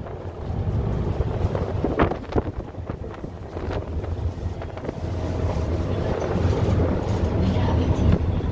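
Wind buffeting the microphone outdoors, heard as an uneven low rumble with a few short knocks.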